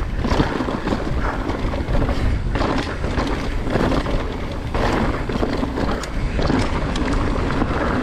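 Wind buffeting the microphone over the tyre noise and chassis rattle of an electric mountain bike riding a dirt trail, with many small knocks from the rough ground.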